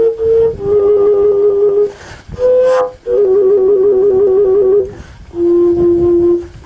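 Fujara, the long Slovak wooden overtone flute, playing a slow melody of long held notes. The phrases break about two seconds in and again around five seconds in with a short breathy rush. A wavering passage in the middle leads to a long steady lower note near the end.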